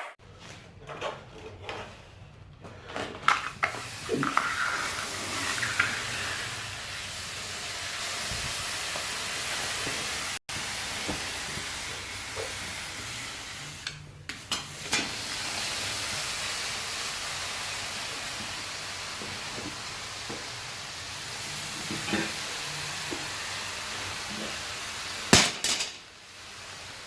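Steady hissing with scattered sharp metal clinks and knocks, broken by a few short cuts.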